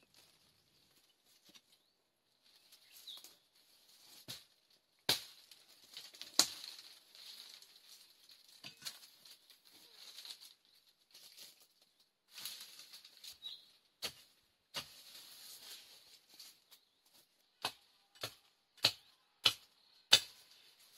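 Rustling and handling noise broken by sharp knocks of hard objects striking, two strong ones about a third of the way in and a quick run of five near the end.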